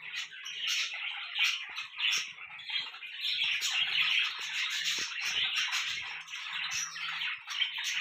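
Several pet budgerigars chattering and chirping without a break, a dense mix of warbles and sharp squawky calls.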